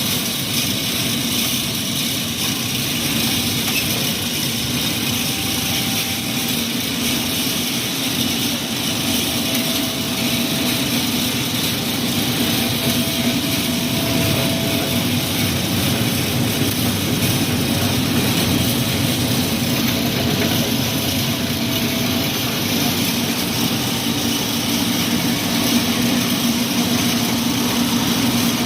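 Wire-making machinery running steadily: a constant mechanical drone with hiss, unchanging throughout.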